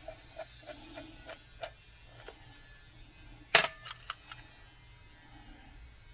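Light clicks and taps of small parts and tools being handled on a small-engine carburetor, with one sharp, louder click about three and a half seconds in.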